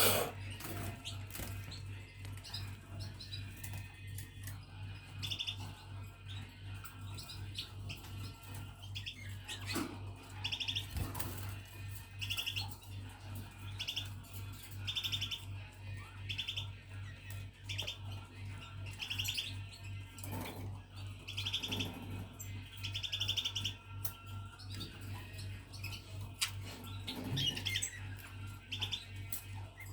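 Budgerigars chirping: a string of short chirps, roughly one a second, over a steady low hum.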